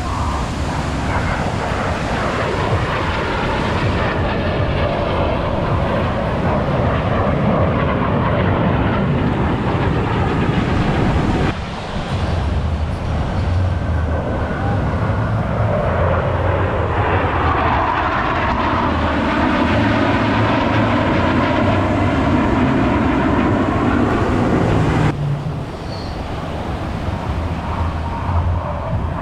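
Jet noise from Blue Angels F/A-18 Super Hornets, their twin turbofan engines passing overhead with a falling whine as each pass goes by. The sound changes abruptly twice, near the middle and near the end.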